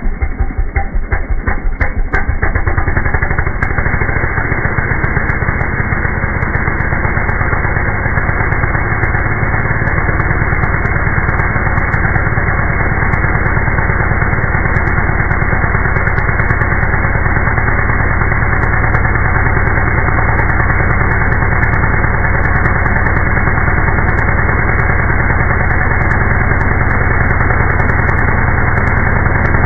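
Two-stroke chainsaw engine running at idle, slowed down by slow-motion playback into a string of separate putts, about five a second at first, which merge into a steady low drone about two and a half seconds in. It putters at the edge of detonation, the sign of spark advance set for high revs being too much for idling.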